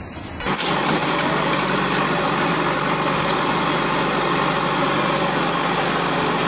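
Diesel engine of a JCB backhoe loader running steadily at close range, coming in abruptly about half a second in.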